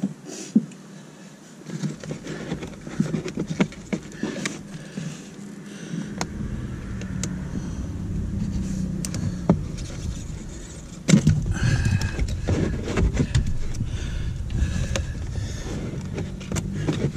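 Hands unplugging the wiring connector and working the heater blower motor loose from its plastic housing under the dashboard: scattered clicks, knocks and rustling of plastic and wires. A low rumble sets in about six seconds in and gets louder about eleven seconds in.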